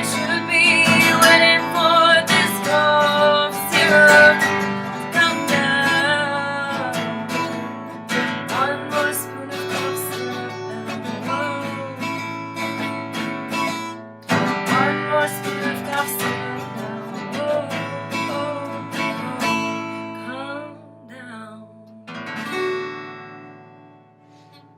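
Acoustic guitar strummed with a voice singing over it. The song winds down, and a last strum near the end rings out and fades away.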